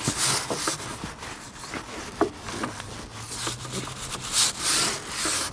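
Stiff-bristled scrub brush scrubbing the boat's deck in quick, irregular strokes, working a degreaser into grease buildup.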